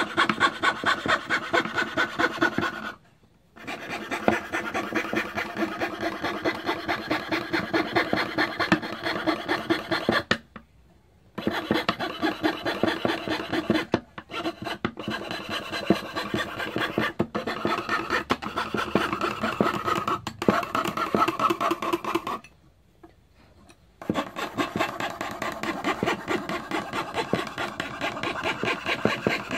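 Hand fretsaw cutting through wood in fast, rhythmic back-and-forth strokes. The sawing stops briefly three times: about 3 seconds in, about 10 seconds in, and for about a second and a half around 23 seconds.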